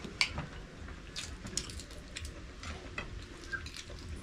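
Sounds of a meal at the table: a string of light, scattered clicks and taps from a spoon and fingers on plates, along with chewing.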